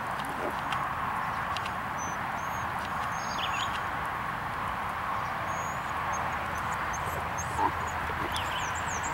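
A Thoroughbred horse's hoofbeats on the sand footing of a dressage arena, soft and faint under a steady background hiss. Short high bird chirps come now and then, and there is a single brief knock near the end.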